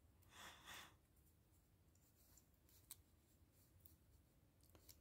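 Near silence with faint handling of a small plastic toy and paper sticker sheet: a brief soft rustle about half a second in, then two faint clicks.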